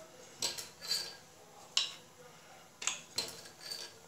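Wooden rolling pin rolling out a small disc of maida dough on a plastic sheet: a few sharp, irregularly spaced clicks and taps as the pin and dough are worked and turned.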